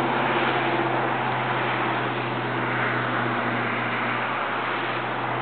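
Steady low mechanical hum over a constant hiss, unchanging throughout.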